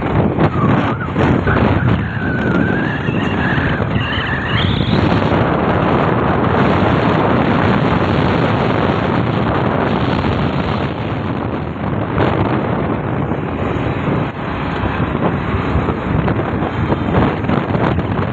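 Road and traffic noise heard from a moving vehicle on a city street, mixed with wind rushing on the microphone. A brief high, rising squeal comes about two to four seconds in.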